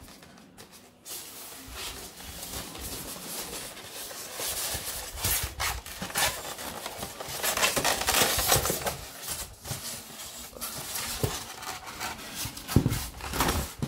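Polystyrene foam packing box being handled and its lid pulled off, foam rubbing and scraping against foam with scattered knocks. The busiest rubbing comes in the middle, as the lid comes away.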